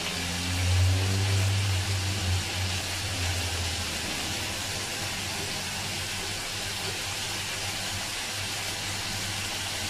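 Marinated lamb pieces sizzling steadily in a frying pan over a gas burner. A low hum sounds under the sizzle for the first four seconds or so.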